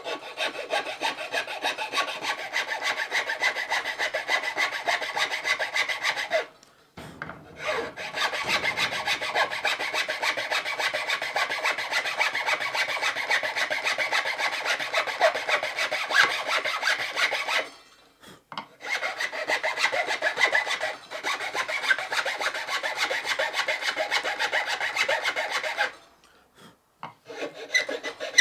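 A thin hand file rasping back and forth in the blade slot of a wooden bucksaw arm, in quick strokes. The filing runs in three long stretches, broken by short pauses about six seconds in, around eighteen seconds in, and shortly before the end.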